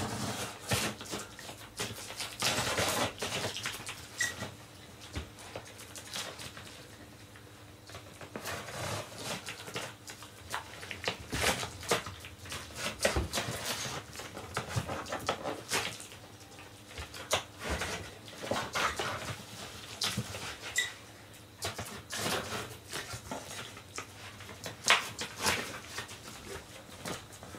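Box cutter slicing and scraping along packing tape on a large cardboard box, with tape tearing and cardboard flaps rubbing and creaking as the box is opened; irregular strokes come and go throughout.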